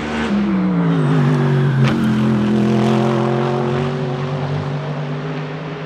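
Mercedes-AMG GT3 race car's naturally aspirated V8 going past on track. The engine note drops in pitch over the first two seconds as the car passes, with a sharp crack about two seconds in, then holds a steady note and slowly fades.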